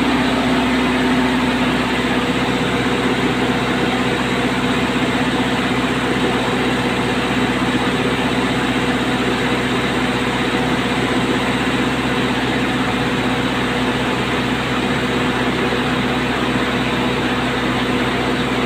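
Diesel generator set in a soundproof canopy running steadily just after starting, an even engine hum that does not change.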